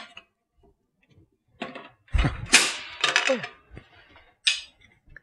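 A black plastic panel being worked loose and pulled out of the front opening of a metal electrical box: a few clicks and scrapes, with a low knock about two seconds in as it comes free, then more brief rattling and a short scrape.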